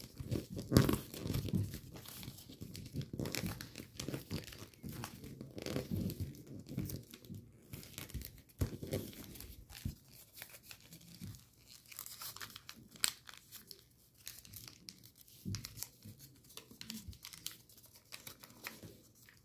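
A paper origami model being folded and creased by hand: irregular rustling and crinkling with sharp crackles as the jet fold is pre-creased. It is busiest in the first half, with one sharp crackle about 13 seconds in.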